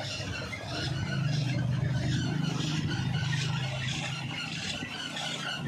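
Small diesel engine running steadily, belt-driving a tube-well centrifugal water pump, with a low, even hum that swells a little about a second in and eases near the end. A high, pulsing squeal sounds over it throughout.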